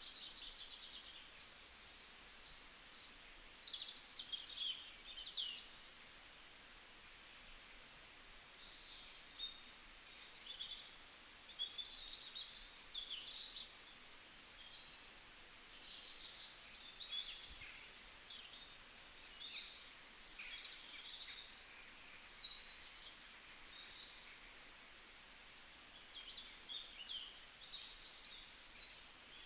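Birds singing and chirping, many short high calls following one another, over a steady background hiss.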